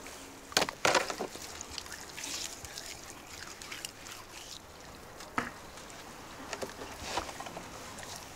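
Raw whole fish handled wetly in the hands: squelching and rubbing of slippery skin, with a few sharper wet smacks, the loudest about a second in and another near the middle.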